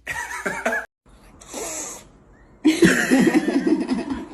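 A cat vocalising and a person laughing, in three short pieces with abrupt breaks between them; the loudest, longest piece comes near the end.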